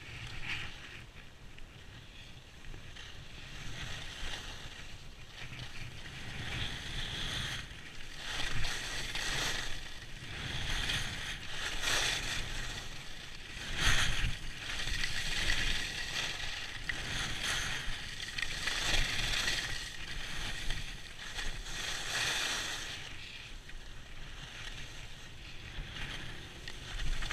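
Skis scraping and carving over hard-packed snow on a downhill run, the hiss swelling and fading every two to three seconds as the skier turns.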